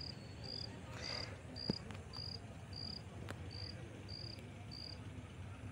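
A cricket chirping faintly: short high chirps at an even pace of about two a second, stopping near the end, with a couple of faint clicks.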